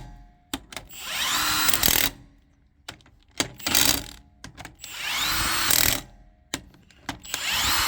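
Impact wrench running the wheel nuts back onto a van's wheel hub in four short bursts of about a second each, the motor winding up in pitch at the start of each burst, with clicks of nuts and sockets in between.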